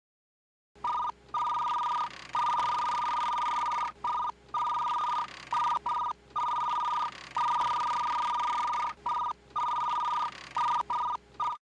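Electronic two-tone beeping: a steady high tone switched on and off in irregular spells of about half a second to a second and a half, with a few faint clicks. It is a telephone-like sound effect that goes with text being typed out on screen.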